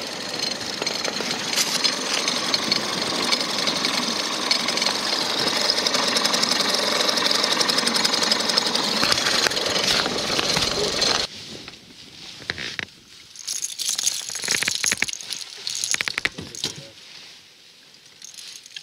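Outboard motor running steadily, cutting off abruptly about eleven seconds in. After it stops there are scattered clicks and knocks of gear being handled in the boat.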